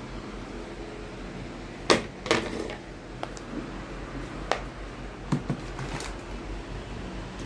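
A handful of sharp clicks and knocks, as of small objects being handled, over a steady low hum; the loudest comes about two seconds in.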